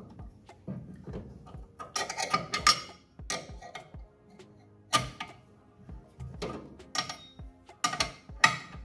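Sharp metallic clicks and clinks of a 9/16 wrench working a bolt as it is tightened, in clusters about two, five and eight seconds in, over music playing in the background.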